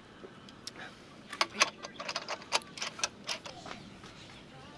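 A quick, irregular run of sharp clicks and clinks, starting about a second in and lasting about two seconds.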